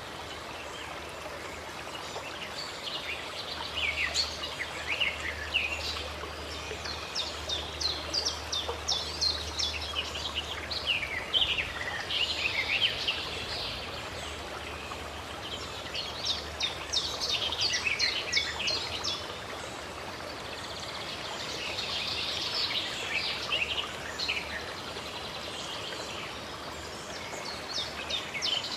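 Small songbirds chirping and twittering in quick bouts every few seconds over the steady rush of running water from a stream or waterfall.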